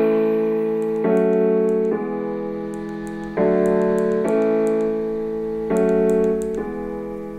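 Music played through Xiaomi Mi computer speakers: an electronic track with sustained piano-like keyboard chords that change every second or two over a faint ticking beat.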